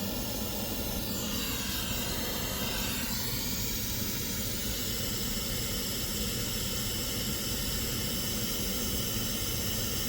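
Steady white test noise from a measurement app's noise generator, played through a car audio system while each speaker's level is set by close-mic measurement. Its tone shifts briefly in the upper range about two seconds in.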